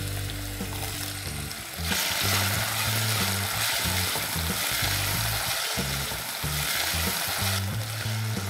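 Cubed potatoes sizzling in hot oil in a deep pan as they are stirred with a spatula. The sizzle gets louder about two seconds in and drops back near the end.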